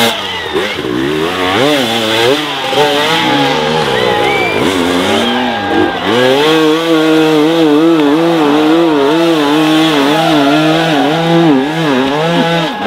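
Enduro motorcycle engine revving up and down in quick repeated swings, then held at high revs with a fast wavering pitch from about six seconds in.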